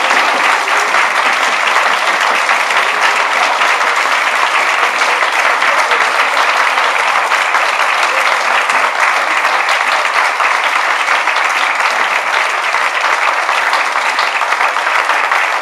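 Audience applauding, a steady, loud clapping that does not let up.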